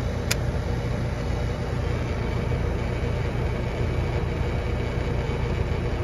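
Trane 5-ton heat pump outdoor unit running with a steady low hum from its compressor, still starting and running on a run capacitor with no capacitance, carried by its start capacitor. A single sharp click about a third of a second in.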